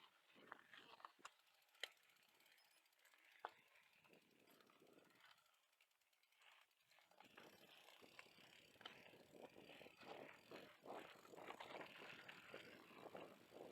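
Faint ticking of a bicycle freewheel ratchet with scattered sharp clicks, growing busier after about seven seconds.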